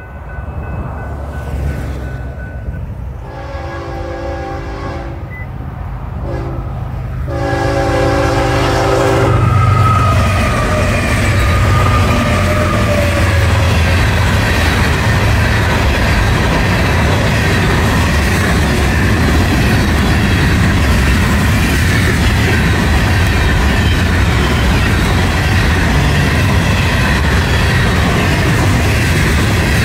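Freight train horn sounding at a grade crossing: a long blast, a short one, then another long blast that ends about nine seconds in. The locomotives then pass close by, and the freight cars roll past with a steady loud rumble and the clatter of wheels on rail.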